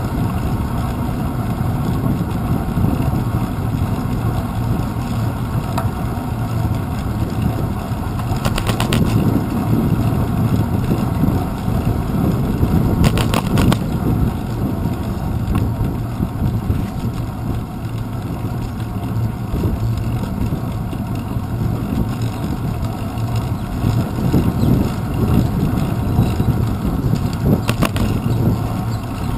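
Steady low rumble of wind and road vibration from a bicycle ride, picked up by a handlebar-mounted GoPro Hero 2, with short bursts of clicking three times.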